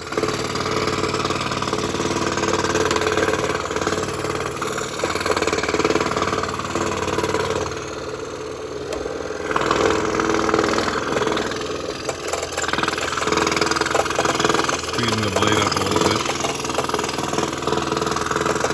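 Scroll saw running steadily, its fine 2/0 blade cutting puzzle interlocks in 1/4-inch Finnish birch plywood. The sound eases for a second or two about eight seconds in.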